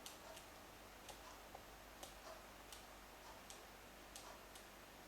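Near silence with faint, light ticks recurring roughly once or twice a second.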